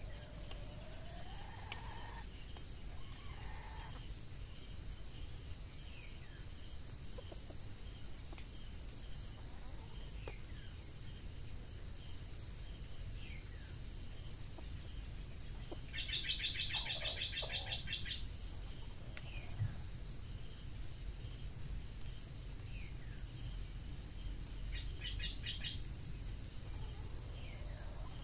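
Steady high-pitched drone of forest insects with scattered short falling bird chirps. About halfway through a loud, fast rattling buzz lasts roughly two seconds, and a shorter one comes near the end.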